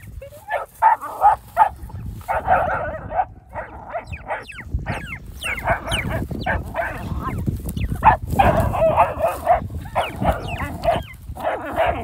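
German shorthaired pointer puppy yipping and whining in quick, repeated short cries while chasing and catching a quail.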